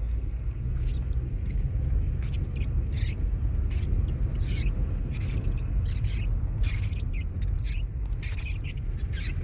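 Steady low rumble of wind buffeting the microphone during rain, with many short, high chirps scattered irregularly throughout.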